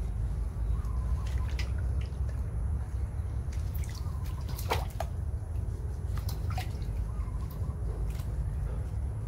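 Water splashing and dripping in a metal basin as a baby monkey is washed by hand, with scattered sharp drips and splashes over a steady low rumble.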